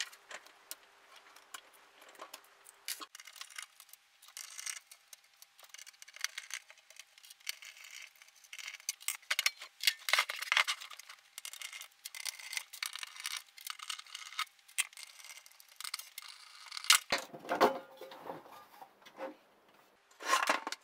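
Irregular clicks, scrapes and light metallic clinks of hands taking apart a Luxman 5C50 preamplifier's steel chassis: the rubber feet and the perforated metal bottom cover are being removed. A few heavier knocks come near the end as the unit is handled.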